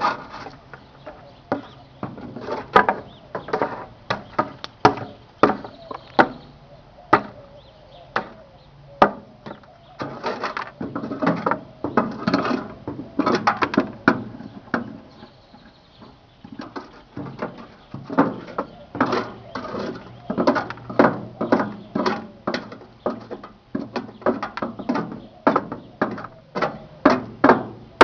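Irregular sharp knocks and clatter, a few every second, over a faint low steady hum.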